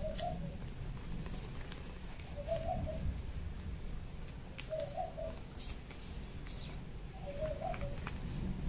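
A dove cooing four times, a short low phrase about every two and a half seconds, with faint rustling of fabric being handled.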